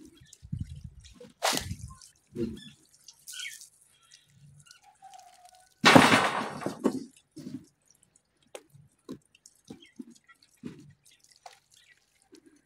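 Water sloshing and dripping in a goat drinking trough cut from a rubber tyre as it is washed out by hand, with one loud splash about six seconds in.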